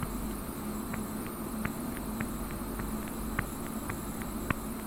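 Light, sharp clicks, about two to three a second at uneven spacing, from the pen input as zeros are hand-written one after another on the screen, over a steady low electrical hum.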